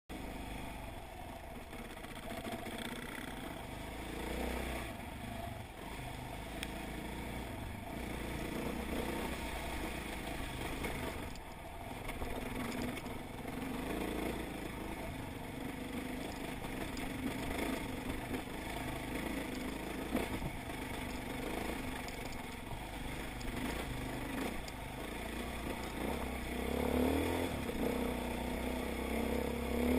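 Enduro dirt bike's engine running on a rocky trail, its revs rising and falling as the rider works the throttle, with occasional knocks from the bike over stones.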